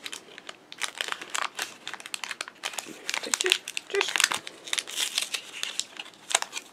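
Plastic blister packaging of a trading-card pack crinkling and crackling as it is wrestled and torn open by hand, a rapid irregular run of sharp crackles.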